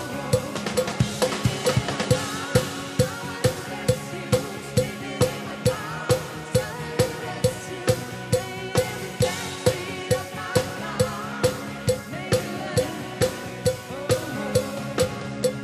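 Drum kit played live in a steady rock beat, heard close up, with bass drum and snare hits landing about twice a second over the rest of the band.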